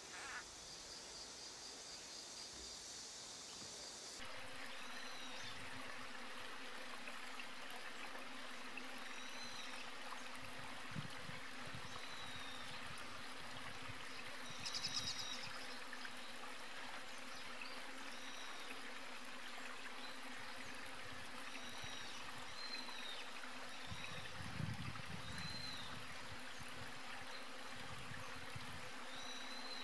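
Outdoor nature ambience: a steady hiss like trickling water with insects buzzing. A high, steady buzz stops suddenly about four seconds in, and after that short high chirps repeat every second or two.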